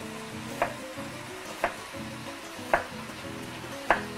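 Chef's knife slicing through a red onion into rings and striking a wooden cutting board, four sharp knocks about a second apart.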